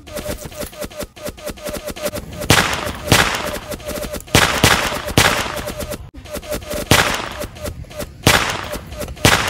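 Battle sound effects of rapid machine-gun fire rattling on, with about seven louder single gunshots ringing out from about two and a half seconds in.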